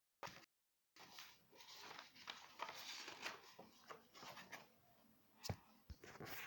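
Faint handling noise, rustling with scattered light clicks and one sharper click about five and a half seconds in; the sound cuts out completely twice near the start.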